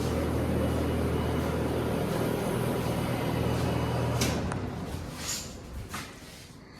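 Outdoor air-conditioning condenser units running: a steady low hum with fan noise, which falls away about four seconds in, just after a sharp click or two. The coils of these condensers are dirty and need cleaning.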